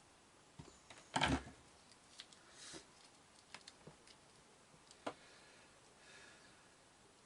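Small clicks and knocks of a rewirable mains plug and screwdriver being handled while the plug is wired, with one louder clatter about a second in.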